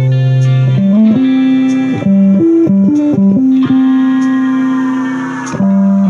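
Music: an electric guitar through effects plays a slow single-note melody of long held notes, sliding between pitches, with a quicker run of notes in the middle.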